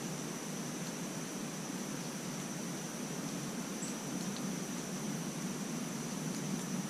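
Steady outdoor background noise in woodland: an even hiss with a thin, continuous high-pitched tone running above it.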